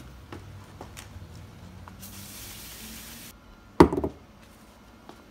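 Metal parts handled on a wooden workbench: a welder's ground clamp and a freshly welded shifter yoke. There are a few light clicks, a brief hiss about two seconds in, and one heavy knock a little before four seconds in, loudest of all.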